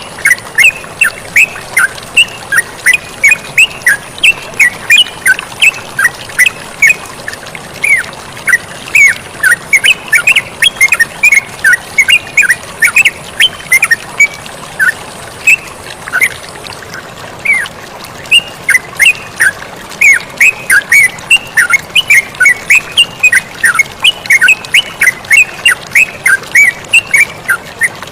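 Yellow-vented bulbul (terucukan) calling: a fast, unbroken string of short falling notes, several a second, over a steady rush of flowing water.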